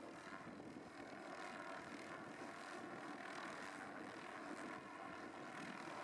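Faint, steady helicopter engine and rotor noise.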